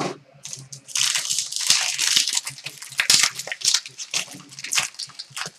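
Foil wrapper of a trading-card pack being torn open and crinkled by hand, in a quick string of rustling, crackling bursts.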